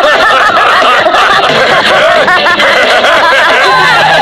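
Several cartoon characters laughing at once, their laughs overlapping with no break.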